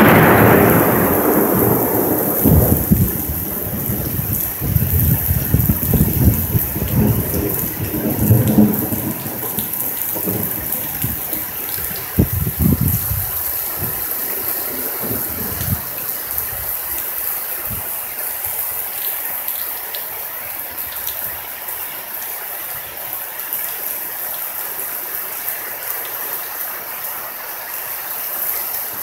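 Thunder dying away after a close, loud clap. It rumbles in low peals that fade out about halfway through, leaving the steady sound of rain.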